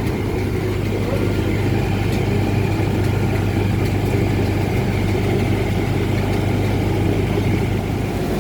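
One-ton feed mill running under test, its motor making a steady, unchanging drone.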